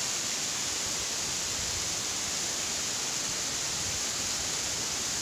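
Waterfall rushing: thin streams of water falling down a high rock face onto the rocks below, making a steady, bright hiss with no breaks.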